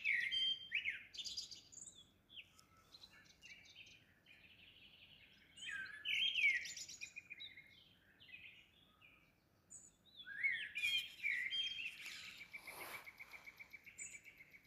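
Songbirds singing in three bursts of rapid, warbling and trilling phrases, with quieter gaps between. A brief falling swish comes about two-thirds of the way through.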